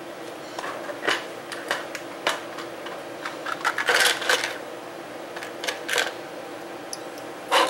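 Small clicks and clatters of a circuit board and plastic parts being handled and set down on a hard surface, with a rustle of packaging about four seconds in. A steady low hum runs underneath.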